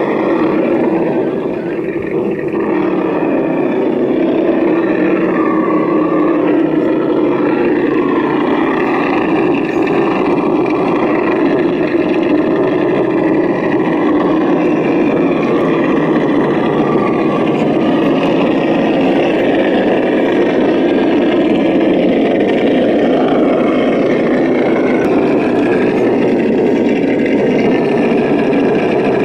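Simulated V8 truck engine sound for an RC Axial SCX10 crawler with a Ford F350 body, running steadily with gentle rises and falls in pitch as the throttle changes.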